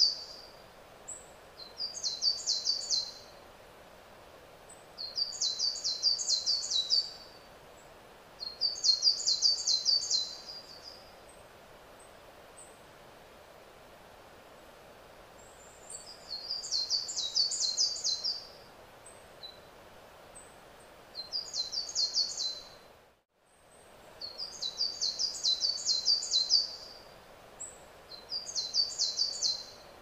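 A songbird singing the same short, high-pitched phrase over and over, each a rapid run of repeated notes lasting a second or two, about seven times with short pauses and one longer silence in the middle. Steady faint background noise lies under the song, and the sound cuts out for a moment about two-thirds of the way through.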